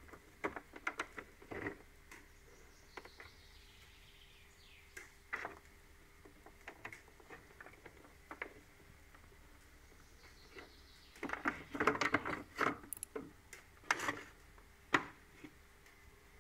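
Handling noise: scattered light clicks, taps and rustles as the inspection camera's flexible cable and the hard plastic case are handled, with a busier run of clicks about two-thirds of the way through. A faint steady hum lies underneath.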